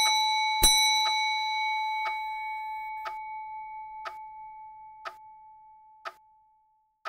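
Clock ticking about once a second under a bell: one bell strike less than a second in, then a single long ringing tone that fades steadily and dies away about six seconds in.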